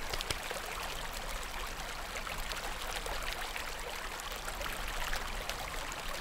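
Steady, even hiss of background noise with faint scattered ticks.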